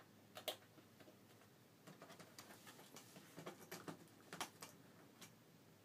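Small, sharp clicks and taps of a screwdriver and tiny screws being handled while the screws of a laptop screen panel go back in: one clearer click about half a second in, then a run of quieter irregular clicks. The rest is near silence.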